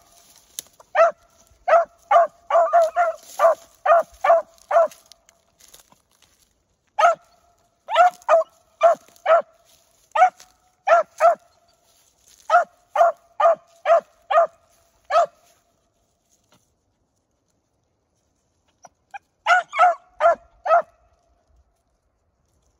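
Young beagle hound barking while trailing a rabbit by scent, in quick runs of short, clipped barks. The barking stops for a few seconds past the middle, then another short run comes near the end.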